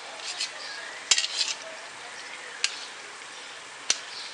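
Sharp clicks of a knife against a cutting surface as soft boiled goat brain is cut into pieces: a few light taps, a quick cluster about a second in, then two single clicks. Under them, a steady faint sizzle of masala paste cooking in oil in a pan.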